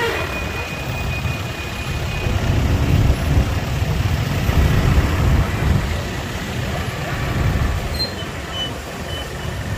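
Slow, jammed traffic of motorbikes and a container truck: a steady low engine rumble with road noise. A few faint short high tones sound near the end.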